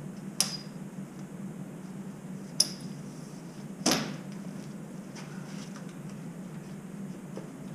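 Three sharp metallic clinks, about half a second, two and a half and four seconds in, the middle one the loudest, as a garden hose and its fitting knock against metal piping and valves, over a steady low hum.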